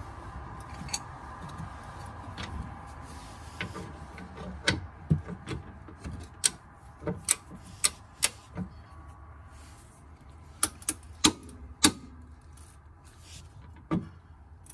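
Hand ratchet clicking as bolts are run in on a car's front suspension bracket: sharp separate clicks in short irregular runs with pauses between.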